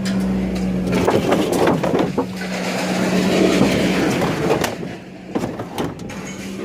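Scrap metal clattering and clanking as pieces are handled and dropped, over a steady low hum that breaks off briefly about a second in.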